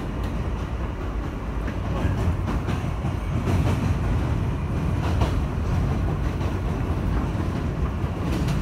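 NYC subway car (Kawasaki R160B with Alstom AC traction motors) accelerating from about 18 to 28 mph: a heavy, steady rumble of wheels on rail with scattered clicks over rail joints. The rumble grows a little louder from about two seconds in.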